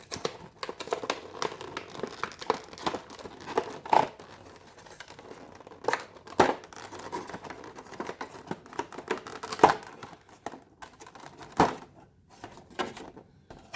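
Cardboard and plastic packaging of a trading-card collection box being handled and opened: continuous crinkling and rustling with frequent sharp clicks and knocks.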